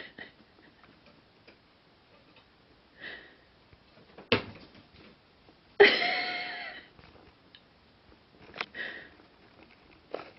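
Soft taps, clicks and rustles of two cats pawing and batting at each other in a wooden drawer. There is a sharp knock about four seconds in, and a louder pitched sound starts suddenly near six seconds and fades over about a second.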